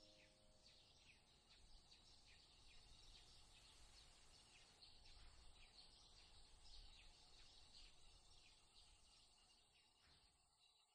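Near silence: faint outdoor ambience with small bird chirps that fades out near the end, as the last held note of music dies away at the start.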